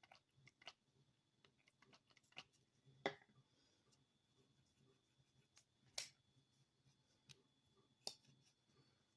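Lock-Stick folding knife being opened and closed, its blade and lock giving a few sharp separate clicks, the loudest about three, six and eight seconds in. The freshly greased action still has a slight click and grate.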